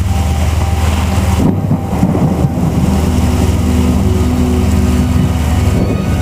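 Heavy thunderstorm rain falling on a car, heard from inside the cabin, over the steady low drone of the car running.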